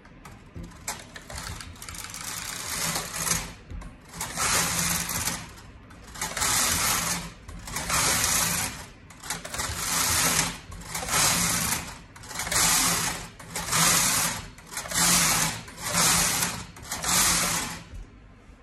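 Brother KH881 punch-card knitting machine carriage pushed back and forth across the needle bed, about ten passes, each a second or so long with short pauses between, knitting rows of tuck stitch.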